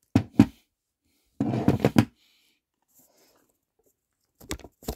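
Handling noise of hand tools on a wooden workboard: two sharp knocks at the start, a rattling clatter of about half a second around a second and a half in, and a few more knocks near the end.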